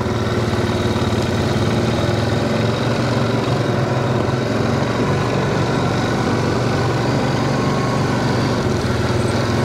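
Quad bike (ATV) engine running steadily as it is ridden along a rough dirt track, a constant low engine hum with no change in speed.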